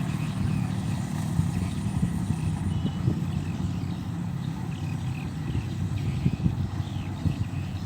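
Engine of a rice-harvesting machine running steadily at a constant speed.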